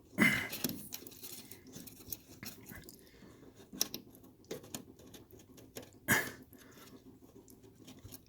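Small metal parts being handled and fitted: irregular light clicks and taps of a steering shaft bearing and its clip being worked into place, with a louder knock about a quarter second in and another about six seconds in.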